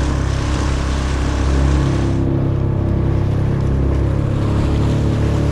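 Small boat's outboard motor running steadily under way, with a hiss of wind and water over it that fades about two seconds in as the engine note shifts slightly.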